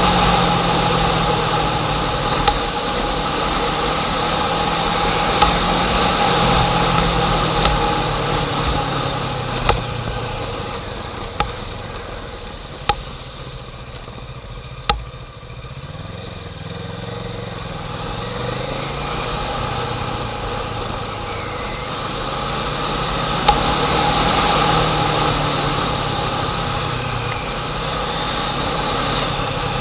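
A motor engine running, its low pitch slowly drifting down and up, with sharp clicks every two seconds or so through the first half. It fades down about halfway through and then builds back up.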